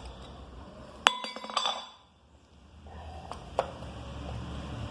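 A sharp metallic clink about a second in that rings briefly before fading, then a couple of lighter clicks: small metal starter-motor parts being knocked together during reassembly.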